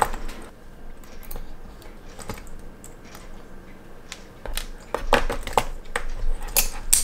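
Light metallic clicks and taps of a stainless steel watch bracelet and spring bar tool being handled on a work mat while the bracelet is detached from the case. A few faint clicks at first, then a run of louder clicks from about five seconds in.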